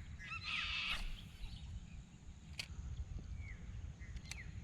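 Birds calling in short, downward-sliding chirps, with a busier burst of calls about a second in, over a steady low rumble of wind and water; a few sharp clicks stand out.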